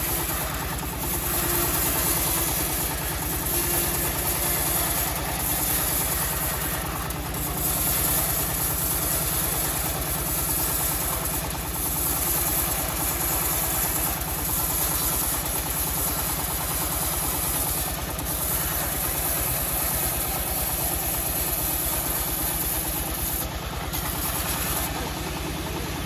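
The engine driving a homemade bandsaw sawmill running steadily, with a steady high hiss above it.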